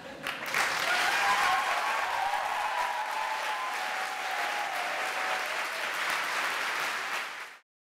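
A large lecture-hall audience applauding: steady clapping that starts about half a second in and cuts off abruptly near the end.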